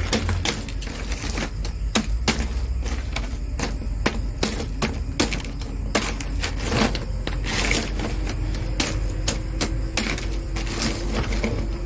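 Block of ice being stabbed over and over with a pointed metal tool in a plastic basin: rapid, irregular sharp clicks and cracks as the ice chips and breaks apart, over a low steady background hum.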